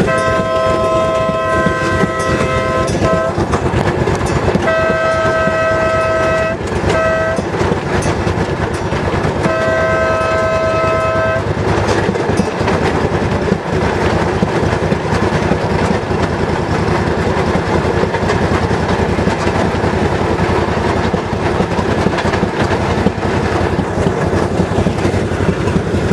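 Railroad motorcar running along the track, its wheels clicking steadily over rail joints. In the first dozen seconds a horn sounds three long blasts, the first two each followed by a short toot.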